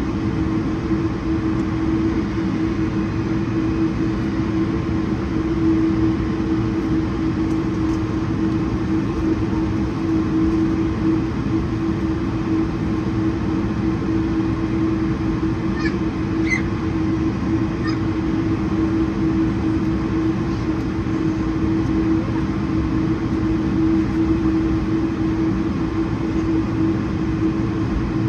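Steady cabin noise inside an Airbus A220-100 with its engines running: an even rumble with one constant humming tone, and a few faint high chirps about halfway through.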